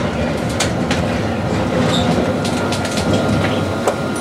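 Montpellier line 1 tram running along the track, heard from on board: a steady rumble with scattered clicks of the wheels over the rails, and a faint steady whine.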